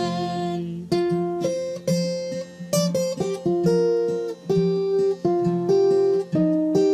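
Acoustic guitar playing an instrumental break without singing, picked notes and chords ringing out one after another in a melodic riff.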